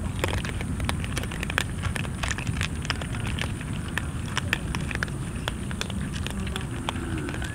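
A crowd of cats crunching dry kibble from a metal tray: a dense, irregular crackle of chewing and pellets clicking on the metal, over a steady low rumble.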